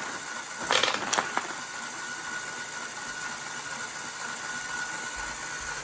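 Lego machine gun's motor-driven mechanism running with a steady whir, with a few sharp clacks about a second in.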